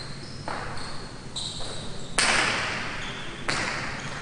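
Jai alai pelota hits ringing out in a large hard-walled court during a rally: three sharp cracks, the loudest about two seconds in, each with a long echoing decay. Short high squeaks of shoes on the court floor come between the hits.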